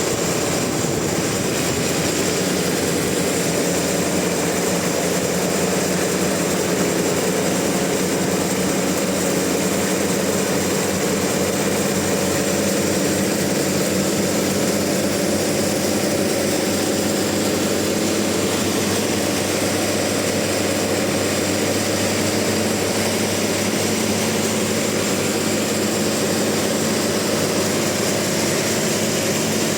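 Sawmill machinery running at a steady pitch: an even mechanical drone with no change in speed.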